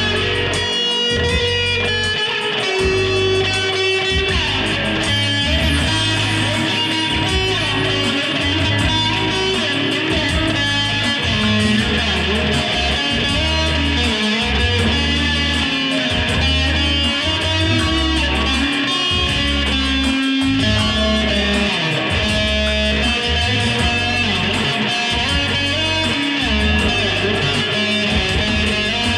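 Electric guitar played live through a small amplifier, with single notes and strums over a backing track that carries a steady bass line.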